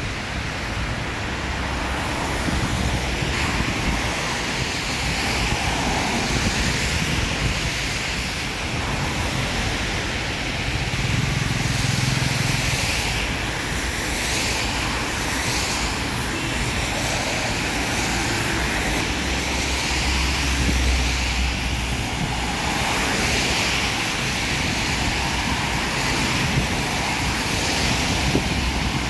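Road traffic passing on a rain-soaked street: a steady hiss of tyres on wet asphalt, with engines going by. A low rumble swells up twice, near the middle and about two-thirds of the way through.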